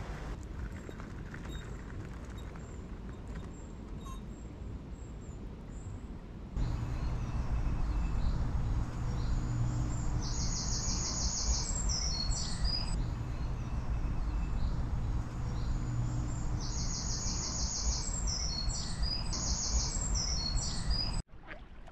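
Small birds singing: several short, rapid high trills, each followed by brief chirps, in the second half, over steady outdoor background noise and a low hum.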